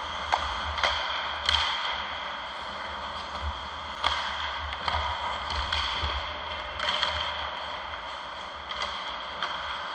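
Ice hockey play around the goal: skate blades scraping the ice under a steady hiss, with a string of sharp clacks and knocks from sticks and puck, the loudest about a second and a half in.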